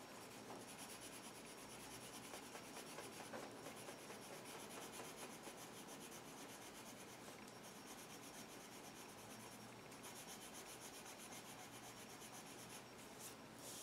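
Faint, steady scratching of a coloured pencil rubbing on paper as it fills in colour.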